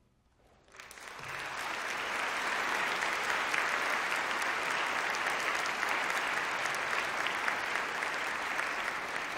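Concert audience applauding. After a brief hush, the clapping swells up within about a second and then holds steady.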